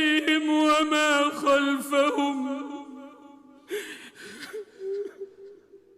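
Male Quran recitation in the melodic mujawwad style: a long held vowel with ornamented, wavering pitch that fades out about two to three seconds in. In the pause that follows come a few breathy sounds and a faint voice.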